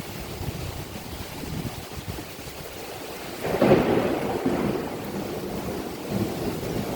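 Rain falling steadily through a thunderstorm, with thunder rumbling; about halfway through a louder roll of thunder swells up and dies away over a second or two.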